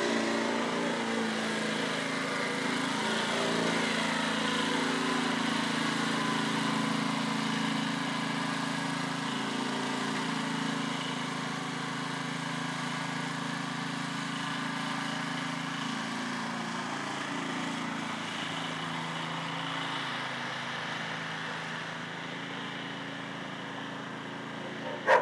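An engine running steadily, getting a little quieter in the second half.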